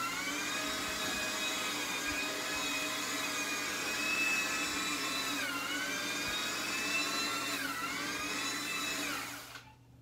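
1950s Hoover floor polisher's electric motor and spinning brushes running on a concrete floor: a steady, not very loud whine whose pitch dips briefly three times. About nine seconds in it winds down and stops as the polisher is stood upright, which cuts the motor.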